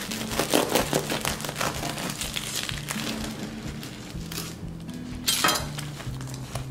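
A bread knife sawing through the hard crust of a freshly baked artisan loaf, crust crackling and crunching under the blade, with soft background music. About five seconds in there is one louder, sharper crunch.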